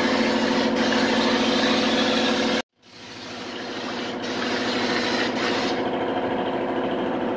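Air-fed underbody spray gun blasting stone-guard deadener: a steady hiss of compressed air over a steady low hum. The sound cuts out briefly about a third of the way in, and the hiss stops about six seconds in, leaving the hum.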